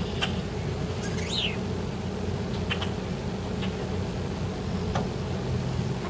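Blackbirds giving short, scattered chirps and calls, with a quick falling call about a second in, over a steady low rumble.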